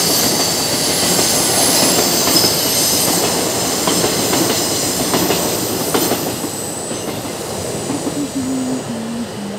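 Commuter train rolling past on a curve: the steady rumble of the cars under a thin, high wheel squeal, with a few rail clacks. It grows quieter over the last few seconds as the train draws away.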